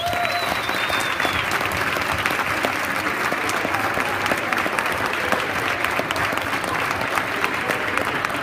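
Audience applauding: dense, steady clapping from a roomful of people that starts abruptly and keeps on, greeting the end of a speech.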